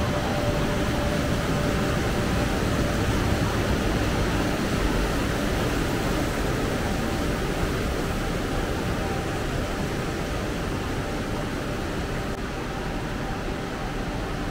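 Steady outdoor ambience: a continuous, even rushing noise with a deep rumble underneath, and no single event standing out.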